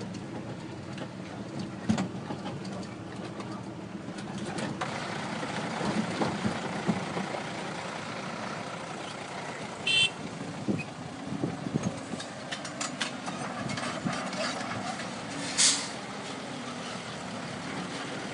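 Diesel engines of an excavator and small dump trucks running steadily, with scattered knocks and clatter as the excavator works. A brief beeping about halfway through and a short loud hiss a few seconds later.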